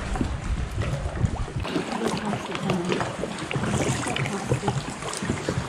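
Sea water lapping and splashing around a kayak, with many short knocks and clicks and a low rumble of wind on the microphone.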